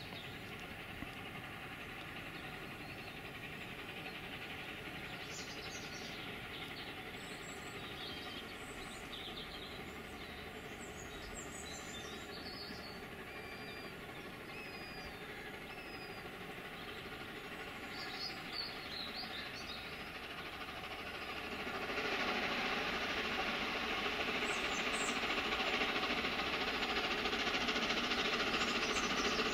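Steam locomotive approaching with its train, a steady distant working sound that grows clearly louder about three-quarters of the way through. Birds chirp over it.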